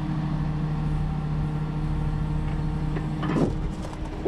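Truck-mounted auto crane's motor running steadily while lifting the tractor's wheel and axle assembly, with a brief clank of metal about three seconds in.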